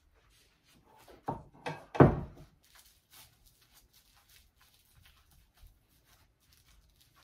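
Three dull thumps about a second in, the last and loudest at around two seconds, then faint soft patting and rustling as gloved hands press sushi rice onto a sheet of nori on a cutting board.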